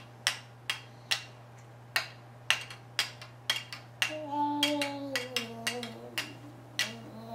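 A baby knocking two small hard plastic toys together: a quick, irregular run of sharp clacks, two or three a second. From about four seconds in the baby vocalizes over the clacks in a rising and falling voice.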